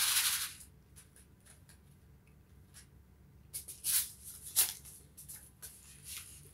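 Paper seed packets rustling and flicking as they are handled and sorted by hand. There is a louder rustle at the very start and a cluster of rustles about four seconds in.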